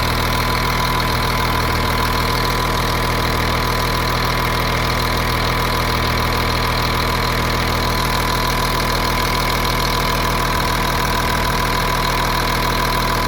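Caterpillar 3126 7.2-litre inline-six diesel idling steadily, with a thin steady whine over the diesel running. The engine shows no blow-by at idle.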